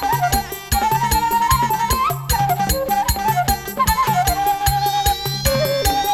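Traditional Batak band music: an ornamented, reedy wind melody over a steady drum beat.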